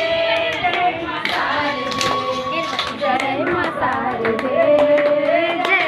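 A Hindi devotional aarti to the Mother Goddess is played on an Alexa smart speaker, with long sung notes. People clap along to it.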